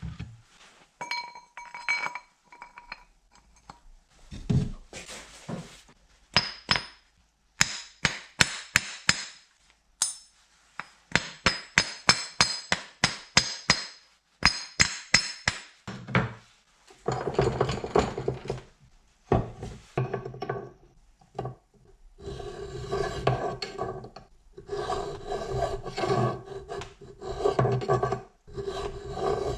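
Metal parts clink, then a rubber mallet taps repeatedly at the steel shaft and aluminium flange to drive the flange over its 8 mm key, with sharp quick taps. Then the aluminium flange, clamped in a steel bench vise, is hand-filed at its keyway in a series of back-and-forth rasping strokes.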